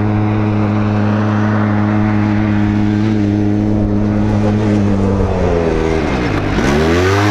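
Polaris side-by-side UTV's engine running at steady high revs across the sand. About five seconds in the revs drop sharply, then climb back up near the end.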